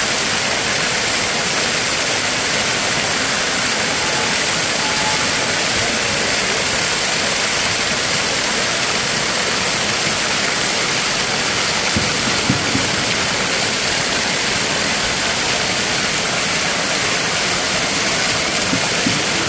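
Steady rushing of a waterfall, an even hiss with no breaks, with a couple of faint knocks about twelve seconds in.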